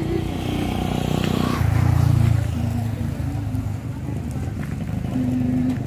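A motor vehicle's engine running close by, a steady low hum that swells about one and a half seconds in and eases off again.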